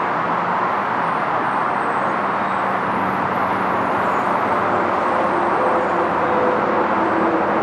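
Electric passenger train running through the station: a steady, loud rush of wheel and rolling noise, with faint humming tones joining about five seconds in.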